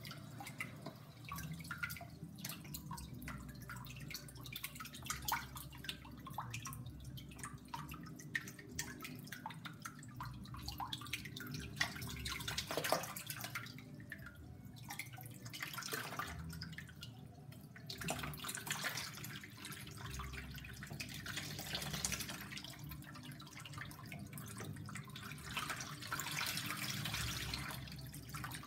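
DIY underwater vacuum cleaner driven by a 34-watt air pump, working under water: air pumped into the pipe lifts water through it, so water bubbles and splashes out of the pipe's outlet, with a low steady hum underneath. The bubbling grows busier and louder in the last third.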